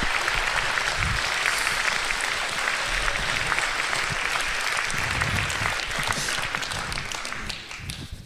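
Audience applauding, many people clapping, dying away near the end.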